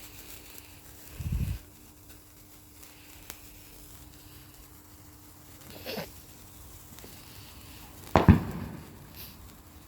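Fireworks going off: a dull thump about a second in, a smaller sharp pop about six seconds in, and a louder sharp bang just after eight seconds.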